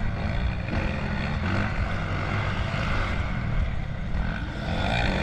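Motocross bike engine heard close up from the rider's onboard camera, running under throttle through slow corners, its note rising and falling as the rider opens and closes the throttle.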